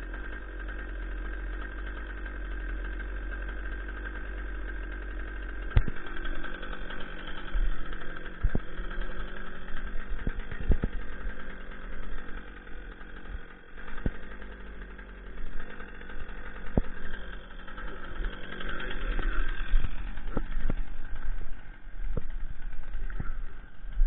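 A small engine idling steadily throughout. From about six seconds in, sharp snaps and knocks of footsteps through brush and snow come over it.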